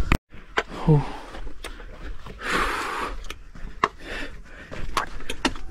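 A hiker's scuffing steps and knocks of handling on a rocky trail, with a breathy exhale about halfway through from the hard climb.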